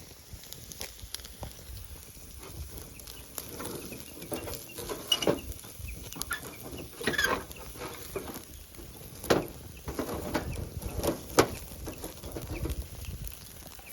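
Steady rush of a waterfall, with irregular knocks and clicks over it, the loudest about five, seven, nine and eleven seconds in.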